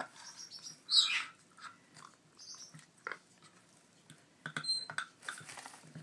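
African grey parrot chicks making short, raspy begging calls ahead of hand-feeding, the loudest about a second in, with a few sharp clicks near the end.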